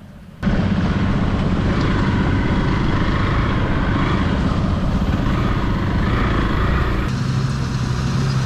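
Hero XPulse 200 motorcycle's single-cylinder engine running as the bike rides along a rough track. It starts abruptly about half a second in, and near the end the sound shifts to a steadier low hum.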